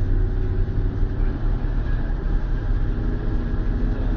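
Steady low rumble of a moving coach bus's engine and road noise, heard from inside the passenger cabin.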